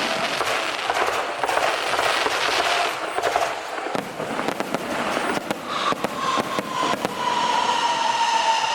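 Firecrackers crackling in a dense, rapid rattle of pops. From about six seconds in, a long held high tone sounds over them, sinking slightly in pitch.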